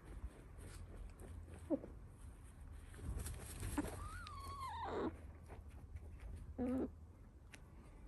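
Hens dust bathing: feathers rustling and dirt being flicked, with a short low call about two seconds in, a longer call sliding down in pitch around four to five seconds in, and another short call near the end.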